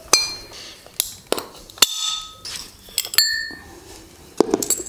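Pliers clicking and clinking against a thin metal bowl, about six sharp clicks, each followed by a brief metallic ring, as the drilled-out centre of the bowl's base is snapped away.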